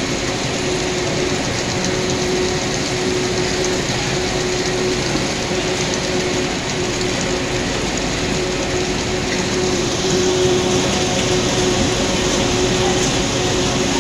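Tomato packing-line machinery running: roller grading conveyors and belt lines giving a steady hum under a dense clatter, a little louder about ten seconds in.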